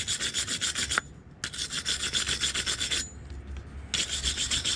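Hand wire brush scrubbing a metal welding-cable connector with rapid back-and-forth strokes, about eight a second, in three runs with short pauses about a second in and about three seconds in. The connector is being cleaned for a good electrical connection.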